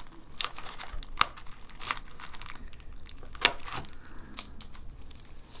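Plastic bag wrapping crinkling and taped packing being pulled open by hand, in a run of irregular sharp crackles, the loudest about three and a half seconds in.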